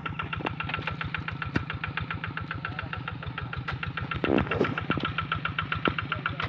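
Engine of a rice-paddy plough tractor running steadily, with an even rapid pulse of about nine or ten beats a second. A brief louder rasping burst comes in about four seconds in.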